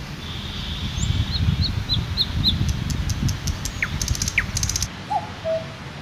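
Several wild birds singing and calling over a low background rumble: a run of short high chirps, two quick falling whistles and a burst of rapid ticking. About five seconds in, the rumble drops away and a lower two-note call begins.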